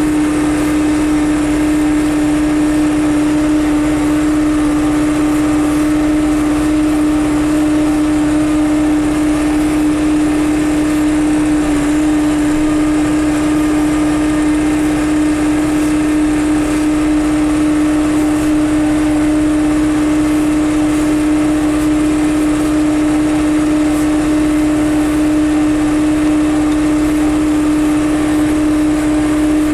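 John Deere 6300 tractor's diesel engine running at a constant working speed while baling hay, a loud steady drone with one strong unchanging tone.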